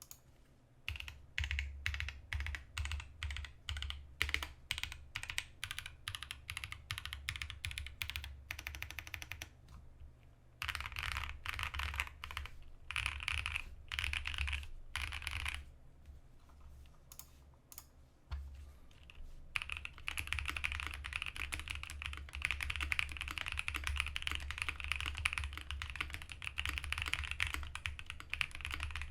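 Custom 65% mechanical keyboard with lubed Holy Boba tactile switches on an FR4 plate, PE-foam-modded, with GMK keycaps, being typed on. Separate keypresses at about two a second for the first nine seconds, then bursts of quicker typing, and from about twenty seconds in continuous fast typing.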